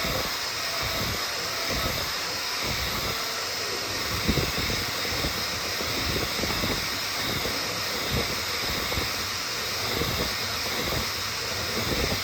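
3D printer running: a steady fan-like hiss under irregular low knocks and rumbles.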